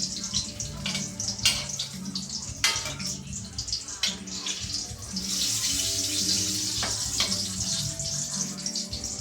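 Water running from a tap into a sink, with a few sharp knocks of things being handled; the water becomes a steady, louder flow a little past halfway.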